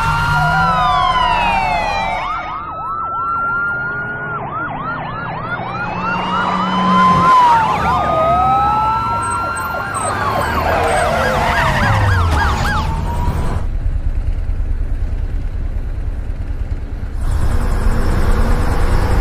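Several police car sirens sounding together, long rising and falling wails mixed with fast yelping sweeps of about three to four a second. About 13 seconds in the sirens stop and a low vehicle rumble is left.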